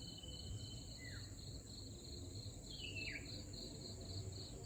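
Crickets chirping in a steady pulsing chorus, with a bird giving short falling calls about a second in and again around three seconds.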